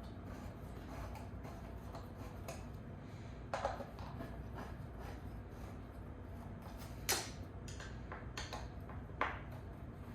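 Scattered clicks and light knocks of a hand tool and metal chair parts as screws are tightened during office chair assembly, three of them sharper than the rest, over a steady low hum.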